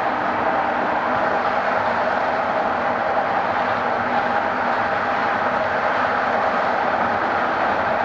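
A passenger train running at speed, heard from inside the carriage: a steady, even rolling noise of wheels on rails and the coach's running gear.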